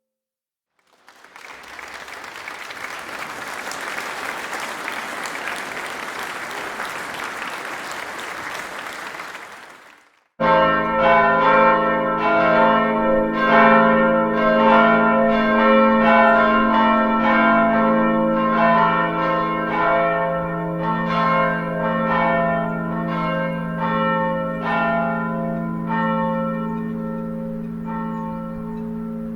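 About nine seconds of steady rushing noise like applause, cut off abruptly, then church bells ringing a peal, one bell struck after another roughly once a second. Their tones ring on and overlap, slowly fading near the end.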